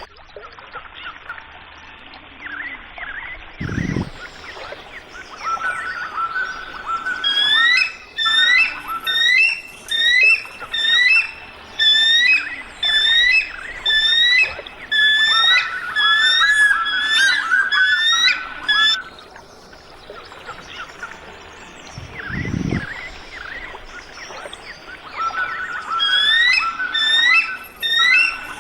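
An eagle calling: fast series of high, piping notes, each with a quick upward or downward pitch hook, in bursts of several seconds with quieter gaps between them. A short low thump comes twice, once in the first few seconds and once in the latter part.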